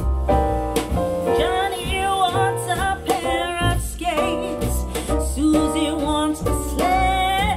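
A song with singing and guitar over a strong bass, played back through a pair of Pioneer CS-501 three-way speakers. The sung notes are held with vibrato.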